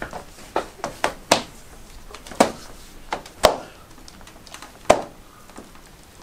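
Irregular thuds and knocks from a wooden-handled mop beating a man lying on a wooden floor, about eight blows at uneven intervals over five seconds.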